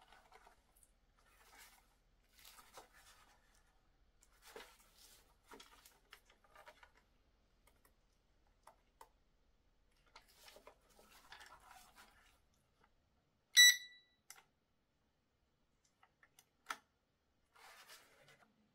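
Gloved hands handling a small plastic drone kit and its cable: soft rustles and scattered light clicks. About two-thirds of the way through comes one short, loud, high electronic beep.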